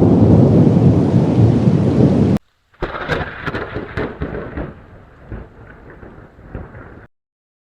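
A loud, steady rushing rumble that cuts off abruptly about two and a half seconds in; after a brief gap a quieter, thinner crackling noise follows and fades away, stopping suddenly near the end.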